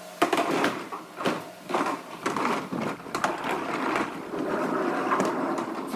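Workshop clatter: irregular knocks and clicks mixed with bursts of rattling, machine-like noise, over a faint steady hum.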